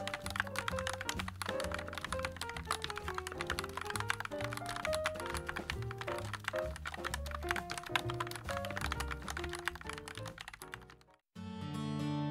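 Fast typing on a JAMESDONKEY RS6 mechanical keyboard with Gateron G Pro switches and PBT keycaps: a dense run of keystroke clicks over background music. The typing and music fade out about eleven seconds in, and after a brief silence a new piece of music starts.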